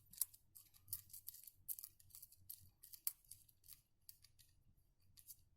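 Faint, irregular small clicks and scrapes from hand work on a light switch and its thin wires, a few louder ticks among them.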